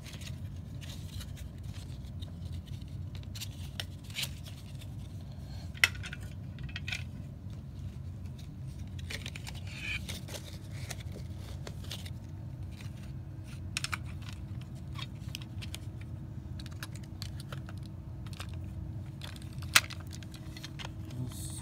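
Scattered clicks and taps of a plastic cassette tape case being handled, with two sharper clicks, about six seconds in and near the end, over a steady low hum.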